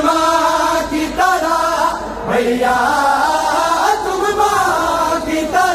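A group of men chanting a noha, a Shia mourning lament, together in sung phrases that rise and fall.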